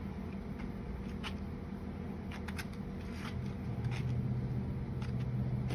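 Rope being wrapped and handled, giving a few short rustling and scraping strokes over a steady low hum that grows louder about two-thirds of the way through.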